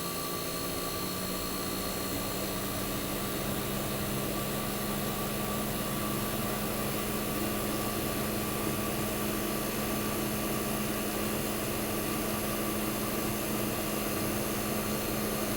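1965 Fedders Weather Wheel 12,000 BTU air conditioner running steadily: an even hum from its large reciprocating compressor over the rush of the evaporator fans. The condenser fan is not turning, as its motor awaits replacement.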